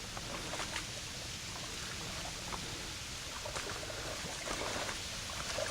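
Dog wading back through shallow, muddy pond water: faint scattered splashes over a steady hiss of trickling water.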